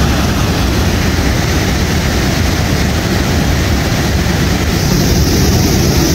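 River rapids rushing over rocks: a steady, loud wash of whitewater, heaviest low down, with a brighter hiss joining about five seconds in.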